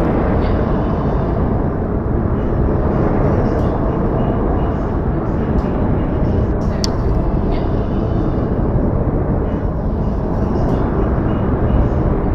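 Steady low outdoor noise, like wind or a distant rumble, from a field recording of a snowy scene, with a few faint ticks.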